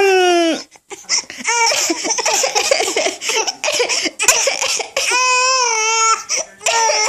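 A baby about five months old laughing and squealing in repeated high-pitched bursts, with breathy, choppy giggles between the squeals.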